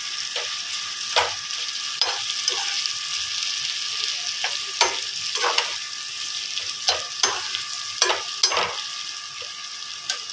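Potato slices and green chillies sizzling in hot oil in a frying pan, stirred with a perforated steel spoon that scrapes and knocks against the pan every second or so, often in quick pairs, mixing in freshly added salt and red chilli powder.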